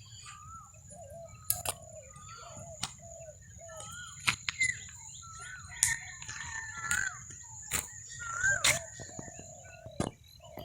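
Several birds calling in a dawn chorus: many short chirps and whistled notes that bend up and down in pitch, over a steady high-pitched tone, with a few sharp clicks scattered through.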